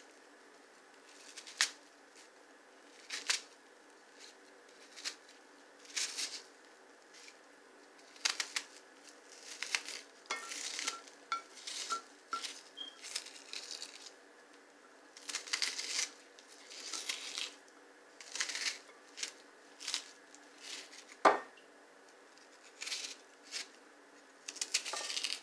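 Knife cutting an onion on a cutting board: short, irregular cuts every second or two, with one louder knock near the end.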